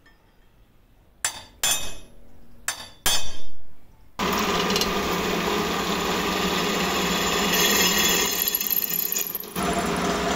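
Four sharp hammer blows on a centre punch, marking a steel tube held in a vise; the last strike is the loudest and rings briefly. Then a bench drill press starts and its twist bit cuts steadily into the steel tube.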